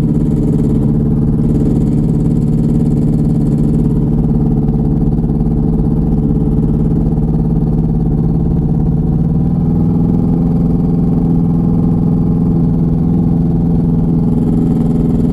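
Small aircraft engine running steadily at low power while taxiing, a loud, steady drone, picked up by a lav mic inside the pilot's helmet.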